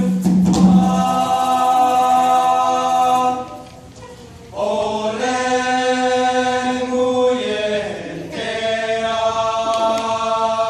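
Mixed chamber choir singing long held chords in three phrases, with a short quieter break after about three and a half seconds and a brief dip again near eight seconds.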